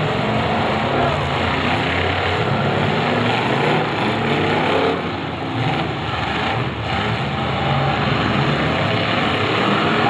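Engines of several demolition derby cars running and revving together in a dense, steady drone, easing briefly about halfway through.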